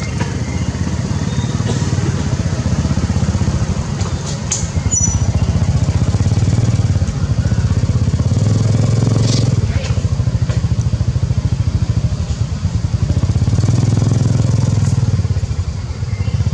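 A small engine running close by with a rapid, even pulse, swelling louder and easing off several times.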